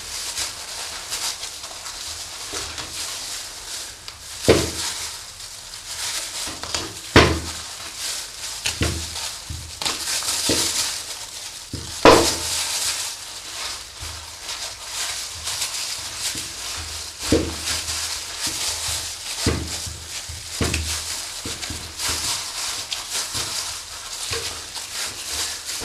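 Knife work on a raw pork front hock on a stainless steel table: cutting and scraping as the skin is taken off. About eight sharp knocks on the metal table stand out, over a steady hiss.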